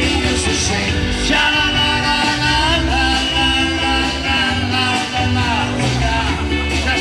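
Live rock band playing a song: electric guitars, drums and keyboard, with a melody line of long held notes.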